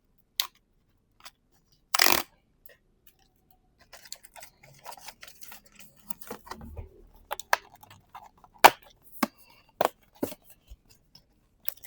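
Pokémon card box and packs being opened by hand: a sharp click, a short loud rasp about two seconds in, then a run of small crinkles and sharp clicks of packaging and cards.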